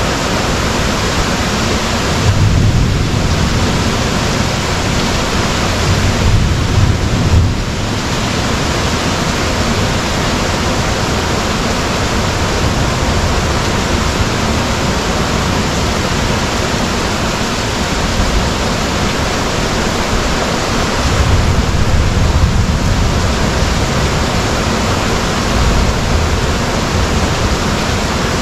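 Heavy rain pouring down in a steady hiss, broken by several brief low rumbles.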